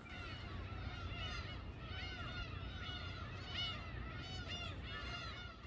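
A flock of birds calling, many short rising-and-falling cries overlapping one another, over a low steady rumble.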